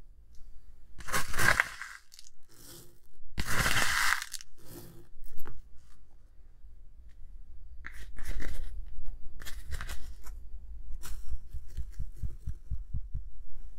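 Gritty rustling bursts of dry white granules and powder being poured and spooned into a glass bowl of foamy slime mixture. The two loudest bursts come about one and four seconds in, with softer ones later and a run of light ticks near the end.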